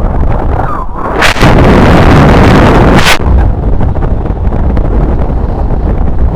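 Strong wind buffeting the microphone in flight: a loud rushing noise with sharp gusty blasts about a second in and again near three seconds.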